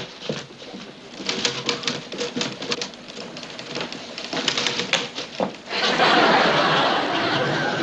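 Typewriters clacking away in a busy newsroom, an uneven patter of keystrokes. About six seconds in, an electric pencil sharpener starts grinding a pencil, a loud steady whirr that drowns out the typing.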